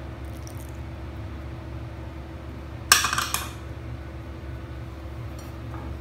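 A sharp clink of kitchenware about three seconds in, a short cluster of knocks with a little ringing, over a faint steady hum.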